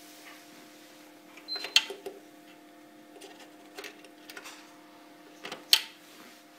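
Scattered sharp clicks and knocks from handling a small device and its cable, the loudest two near the end, over a steady low electrical hum.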